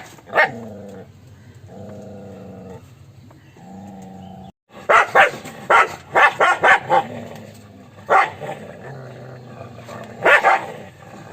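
Dog barking in short, sharp barks: one just after the start, a quick run of about eight barks from about five to seven seconds in, one near eight seconds and a pair near the end. Lower, drawn-out pitched dog sounds fill the gaps between the barks.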